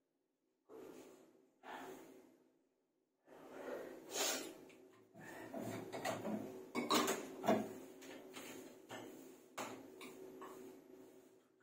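Clattering, knocking and rustling of objects being handled and moved about, with scattered sharp clicks; the loudest knocks come about four and seven seconds in.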